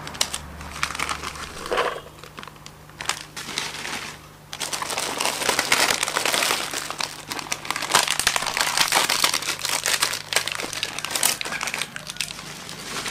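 Crinkling of a small plastic snack packet as it is handled and opened by hand: sparse crackles at first, then dense and continuous from about four and a half seconds in.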